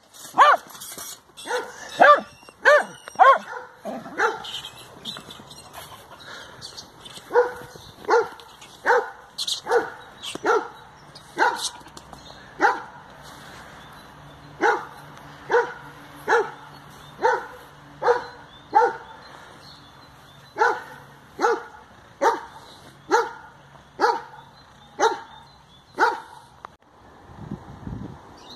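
Jack Russell terrier barking over and over at a caught rat, about one to two sharp barks a second, with a lull about four to seven seconds in. The barking stops near the end, followed by a brief low rumble.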